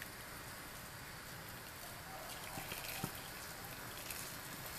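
Boiling water poured from a kettle in a steady stream into an aluminium pressure cooker, splashing onto chunks of beef shank to cover them: a faint, steady hiss of falling water.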